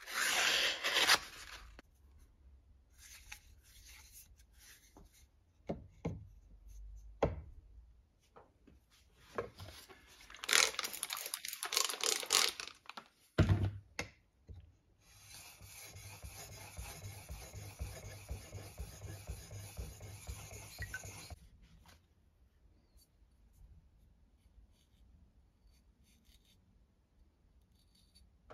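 Knife-sharpening handling sounds: paper crinkling and scraping against a knife near the start, scattered scrapes, a louder stretch of scraping, and a single knock as a sharpening stone is set into its holder. Then comes about six seconds of steady rubbing of a stone, followed by faint handling.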